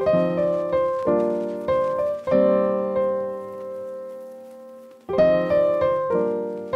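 Background piano music: a few notes struck in quick succession, then a chord held and fading for a few seconds, before the playing starts again about five seconds in.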